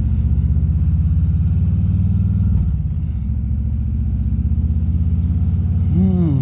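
Harley-Davidson Road King Special's V-twin engine running under way, a steady low pulsing drone that dips briefly about two and a half seconds in.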